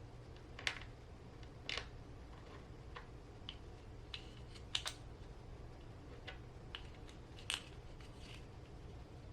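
Scattered light clicks and taps of small RC transmission parts (gears, shaft, overdrive key) being handled and fitted during assembly, over a faint low hum.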